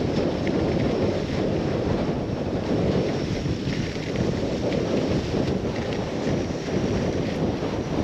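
Strong headwind, about 15 m/s, buffeting the microphone on a moving dog sled: a steady, loud low rushing noise.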